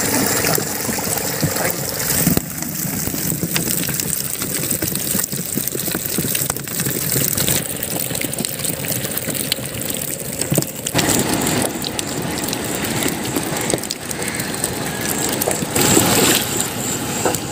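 A catch of live fish thrashing in shallow water, giving continuous splashing and sloshing with many small wet slaps and clicks.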